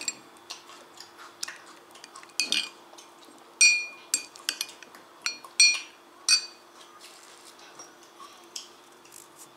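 Metal teaspoon stirring thick sour cream in a glass gravy boat, clinking and tapping against the glass. There are soft scrapes and several brief ringing clinks, the loudest a little under four seconds in and again near six seconds.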